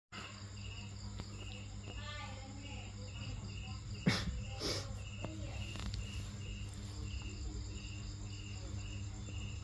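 An insect chirps steadily, about two short chirps a second, over a low, constant hum. A single brief knock comes about four seconds in.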